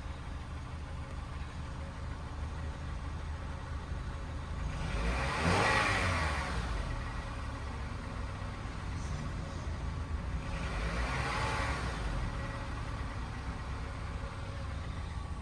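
Honda K24Z1 2.4-litre inline-four engine running steadily, with two swells where its sound rises and falls, about five and eleven seconds in.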